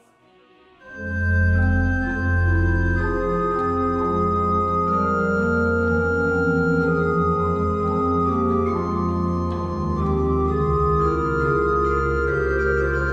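Pipe organ playing: held chords over a deep pedal bass, starting about a second in.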